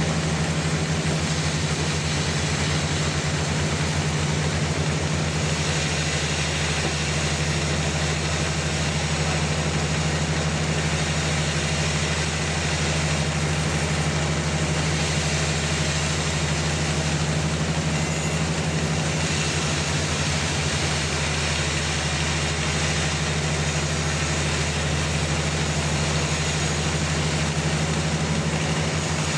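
Sawmill machinery running steadily for the whole stretch, with a constant low hum and a steady noisy wash over it, and no breaks or changes in level.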